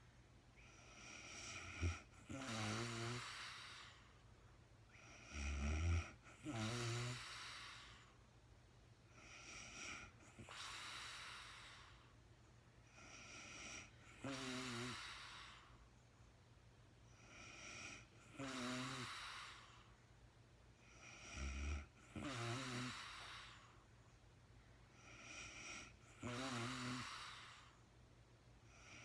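A sleeping woman snoring, with about seven slow, regular breaths, roughly one every four seconds; each breath carries a low wavering snore and a breathy rush of air.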